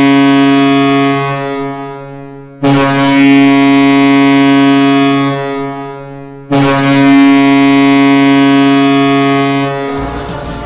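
Ice hockey goal horn blasting in long, steady, deep blasts of about four seconds each. One is already sounding and fades out, and new blasts start about two and a half and six and a half seconds in. Near the end the horn stops and crowd noise rises.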